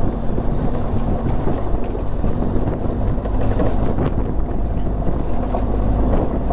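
A vehicle engine running steadily, with low road rumble and wind on the microphone.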